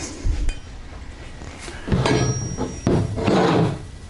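Handling sounds as tools are moved about on a work surface: a thump a moment in, then sliding and rubbing sounds from about two seconds in, with a brief high ring in the middle.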